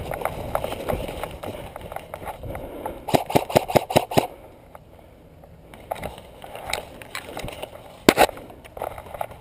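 Rustling footsteps through dry leaves and grass as an airsoft player runs forward to cover. About three seconds in there is a quick run of sharp snaps, then it goes quieter, with a few single knocks and a louder double knock near the end.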